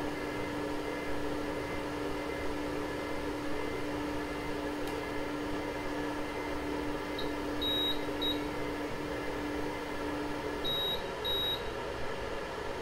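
Anycubic Photon's Z-axis stepper motor lowering the build plate on its homing run, a steady hum that stops about two seconds before the end. Short high electronic beeps come three times around the middle and twice more just as the motor stops.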